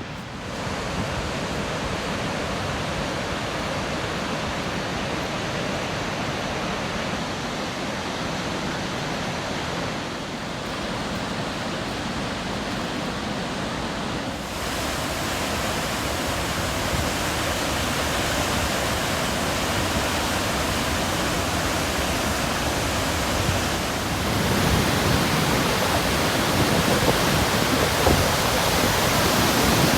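Steady rushing of a large waterfall, a dense even noise that grows fuller about halfway through and louder again near the end.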